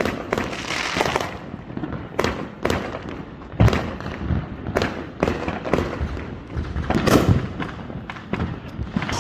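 Fireworks going off in a quick, irregular run of sharp bangs with crackling between them. The loudest bang comes about three and a half seconds in.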